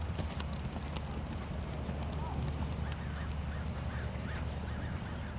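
Hoofbeats of a cantering horse on arena sand, fading as it moves away, over a steady low rumble. A run of short high chirps comes in about three seconds in.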